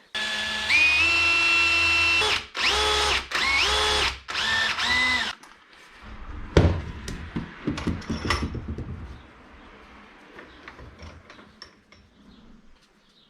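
Electric drill boring a hole through a small pot-metal knob. The motor whines steadily and rises in pitch about a second in, then is run in three short trigger bursts. This is followed by a few clicks and rattles of the part and tool being handled.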